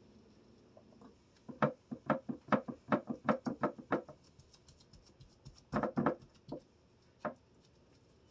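Gloved hand patting and pressing raw ground-beef meatloaf mixture down into a glass baking dish: a run of soft slaps, about four a second, then a few more pats later on.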